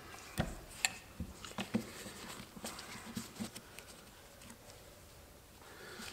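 Faint, scattered clicks and light taps of a screwdriver backing screws out of a carburetor and the small screws being set down on paper towels, with the metal carburetor body shifted in gloved hands.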